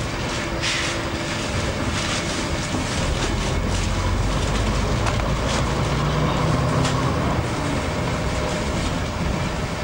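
Bus engine running steadily as the bus drives along, heard from inside, with a steady low hum and rumble and frequent rattles and knocks from the bodywork, the sharpest about a second and two seconds in.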